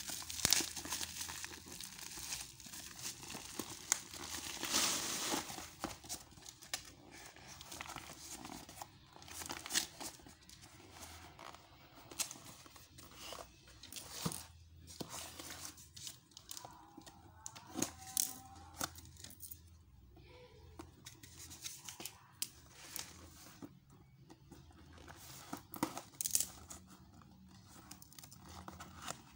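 Packaging being torn open and crumpled by hand: irregular tearing, rustling and crackling, with a brief squeak a little past the middle.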